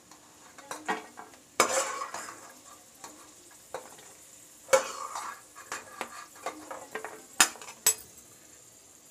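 A steel spoon scraping and clinking against the pan and a steel plate as ghee-fried cashews, almonds and raisins are scooped out. There are several sharp clinks and scrapes, the loudest about one and a half seconds in and again near five seconds, over a faint sizzle of hot ghee.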